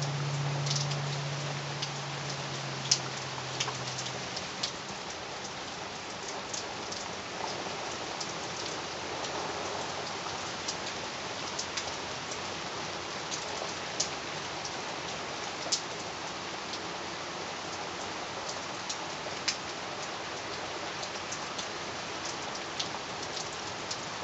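Steady autumn rain, with individual raindrops landing as sharp, separate ticks over an even patter. A low steady hum fades out within the first few seconds.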